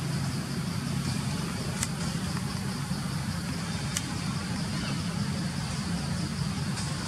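Steady low mechanical hum with two faint clicks, about two and four seconds in.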